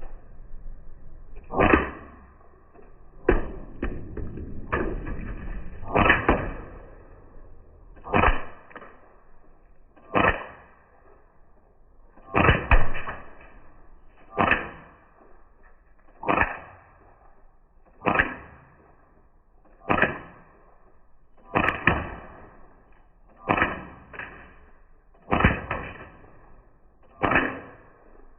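Umarex CO2 BB gun firing single shots at a steady pace, about one every two seconds. Each shot is a sharp crack with a short ring.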